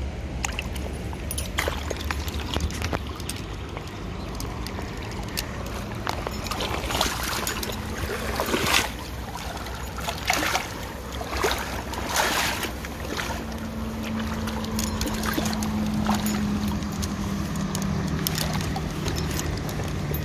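Shallow river water running steadily with a low rumble, broken by a run of splashes and sloshes about seven to thirteen seconds in as a trout moves in a rubber landing net held in the water.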